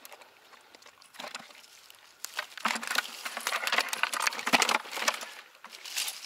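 Rustling and crackling, a dense run of clicks and crinkling for about three seconds in the middle, with scattered lighter clicks before and after.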